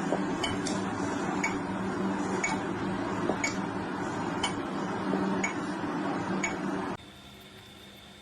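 Regular ticking, about one tick a second, like a clock, over a steady background hiss; it stops abruptly about seven seconds in, leaving a quieter background with a faint steady high tone.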